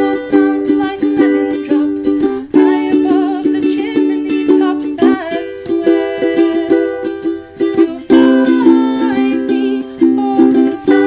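Background music with a steady strummed beat and a wavering melody line above it.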